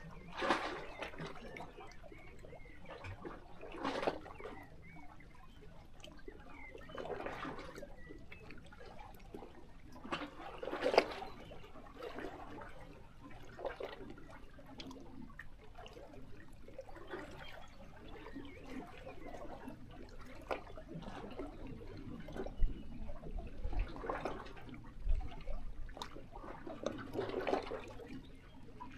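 Small sea waves lapping and splashing against shoreline rocks, coming in irregular surges every few seconds. A few short low thumps come about three-quarters of the way through.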